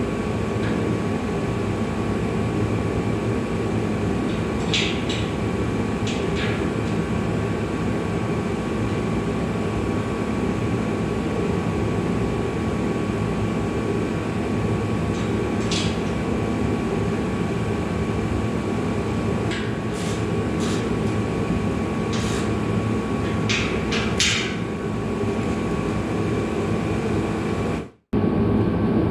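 Steady mechanical droning with a faint high tone running through it, and a few short clicks and taps scattered across it. The sound cuts out completely for a moment near the end.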